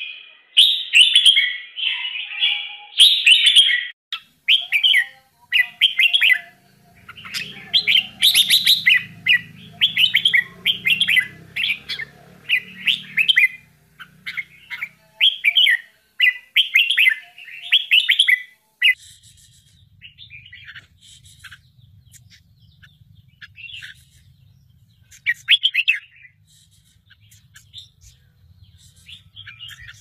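Red-whiskered bulbul chicks and parent chirping at the nest: quick bursts of high chirps about once a second, loud through the first two thirds, then sparser and fainter.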